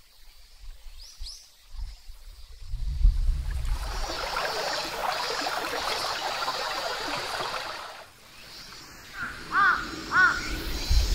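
Shallow forest stream trickling and babbling over rocks. After it fades, a crow caws twice, about half a second apart.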